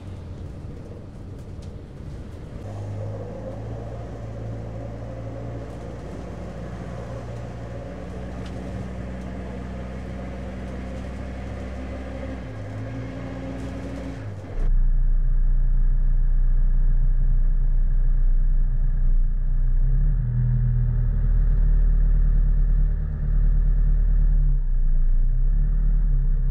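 Low held notes of orchestral background music that shift slowly. About halfway through, this cuts suddenly to the louder, steady deep rumble of road and engine noise heard inside a moving car's cabin.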